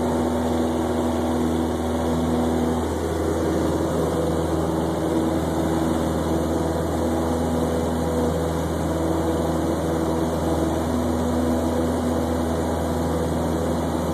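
Light airplane's engine and propeller droning steadily, heard from inside the cabin in cruising flight.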